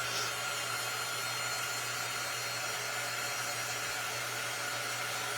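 Steady rushing background noise with a faint, constant high tone underneath and no other event: the kind of continuous air noise a running fan or blower unit makes in a small room.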